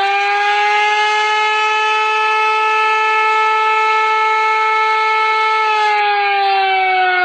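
Air-raid siren sound effect from a scary-sounds app: a wailing siren tone held at a steady pitch after winding up, then starting to wind down slowly near the end.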